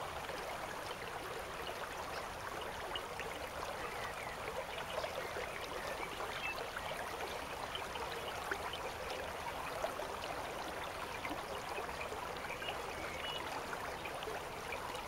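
River water running, a steady trickling and babbling of the current.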